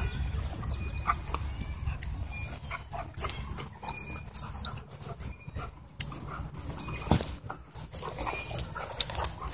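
Huskies play-wrestling close by: dog noises and scuffling, with a couple of sharp knocks about six and seven seconds in.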